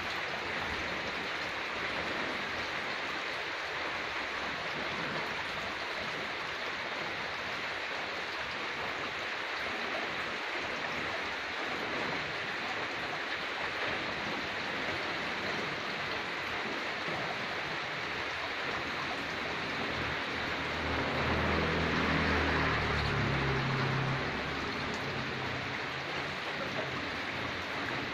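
Steady rain falling on dense tree foliage, an even hiss of drops. About 20 seconds in, a low drone swells and fades again over a few seconds.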